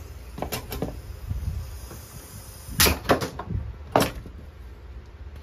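Sharp clicks and knocks from a paint spray gun being handled: a few light clicks, then three loud knocks between about three and four seconds in.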